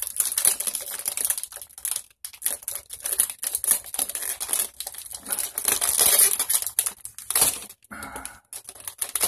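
Plastic wrapper of a Twizzlers licorice pack crinkling and rustling as it is worked open and a licorice twist is pulled out, in irregular crackles with one louder crackle near the end.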